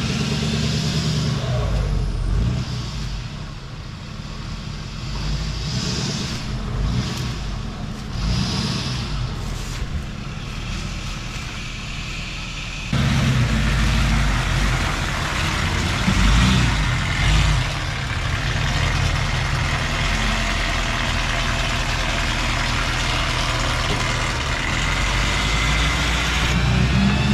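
Truck engine running steadily; the sound turns suddenly louder about halfway through.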